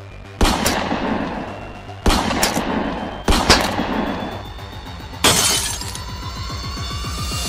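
Intro music with four sudden sharp hit sound effects a second or two apart, the last one a burst of shattering glass, followed by a rising tone near the end.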